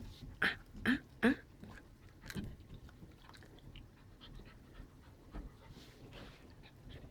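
Puppy chewing and biting, with a few sharp crunches in the first couple of seconds, then quieter gnawing.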